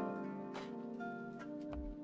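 Lofi background music: soft keys over a slow beat with a low kick drum and light hi-hat.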